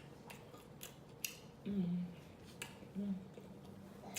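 Eating noises: scattered wet mouth clicks and smacks from chewing. Two short low hums come about halfway through and again near three seconds in.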